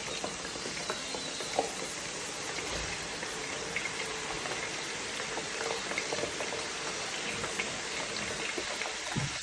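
Potatoes deep-frying in hot olive oil: a steady sizzle with scattered small pops.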